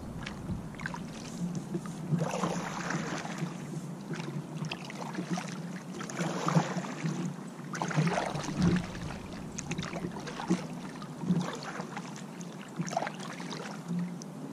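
A double-bladed paddle driving an inflatable kayak: the blades dip and splash into the water in a steady series of strokes, about one every one and a half to two seconds.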